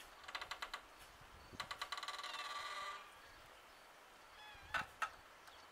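A bird trilling: two quick bursts of rapid chirping, the second drawn out, then a few faint gliding whistles. Two sharp clicks near the end are the loudest sounds.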